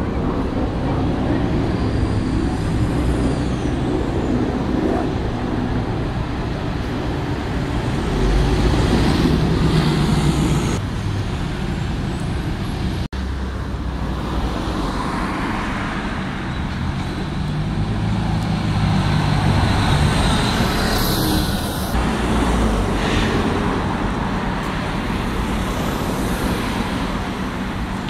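Street traffic: buses and cars driving past, with a continuous engine rumble and road noise that swells and fades as vehicles pass. The sound changes abruptly a few times where takes are cut together.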